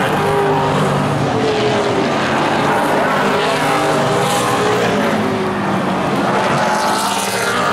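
Several late model stock car V8 engines racing around a paved oval at speed, their overlapping engine notes rising and falling in pitch as the cars pass.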